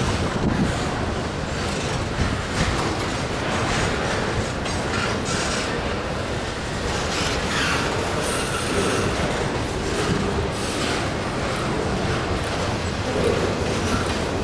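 Freight train cars rolling past on the rails: steady wheel rumble and rattle, with brief faint wheel squeals now and then.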